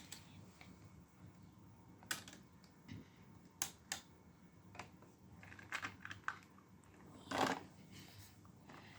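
Plastic LEGO pieces clicking and rattling as they are handled, in scattered irregular clicks, with a louder clatter about seven seconds in.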